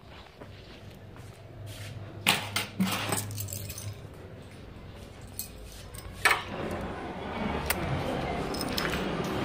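Keys jangling and clinking, with a cluster of sharp metallic clicks two to three seconds in and another just after six seconds. A steady rushing noise builds through the last few seconds.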